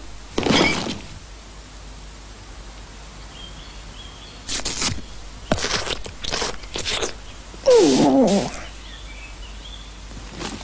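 Cartoon sound effects of a mouse biting into a chocolate bar: a few short, crisp crunching bites and chews. About 8 s in comes a short vocal sound falling in pitch.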